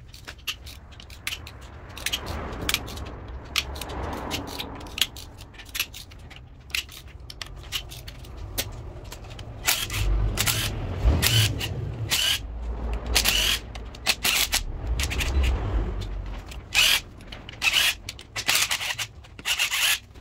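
BMW N62 V8 cylinder-head bolts being undone with an E12 Torx socket on a hand tool: irregular metallic clicks and scraping, with low thuds in the middle as the tool is worked.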